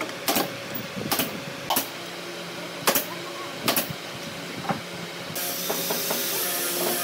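Steel pipe clamps clicking and knocking, about six sharp metallic strikes roughly a second apart, as the clamp jaws are slid along the pipes and tightened onto a wooden table frame. A steady hiss comes in about five seconds in.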